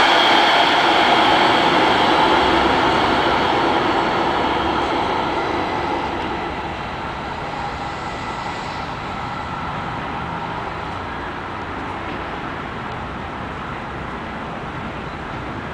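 Hudson-Bergen Light Rail electric light rail vehicle pulling away from the platform: a motor whine with steady tones over wheel and rail noise, loudest at first and fading over the first several seconds. After that a steady, quieter rumble carries on.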